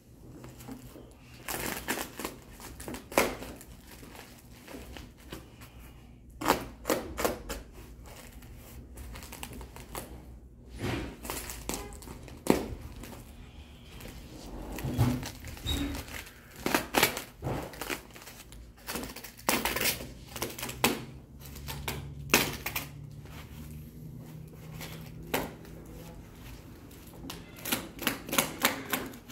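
Plastic wrapping crinkling and crackling in quick, irregular snaps as a large wrapped package is pulled and cut open by hand.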